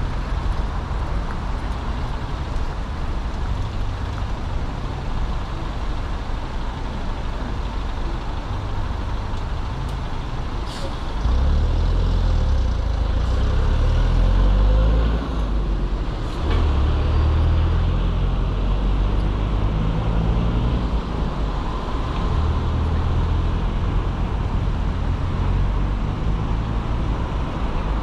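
Road traffic with a steady low rumble. It grows louder about eleven seconds in and again around sixteen seconds as a box truck and cars drive across the intersection. There are two brief sharp clicks.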